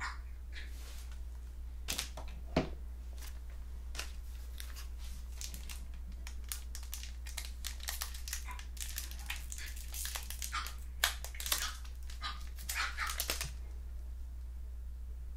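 2000 Bowman football card pack's foil wrapper crinkling and cards being handled: a run of quick crackles and clicks, busiest in the middle and latter part, with a low hum underneath.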